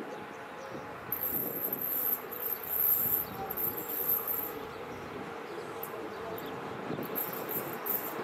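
Insects chirping in very high-pitched bursts, strongest in the first half and again near the end, over the faint steady rumble of an electric locomotive and its train still far off.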